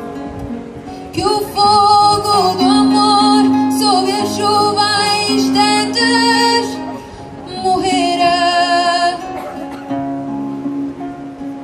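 A woman singing long held notes with vibrato over a classical guitar and clarinet accompaniment; near the end the voice stops and the instruments carry on.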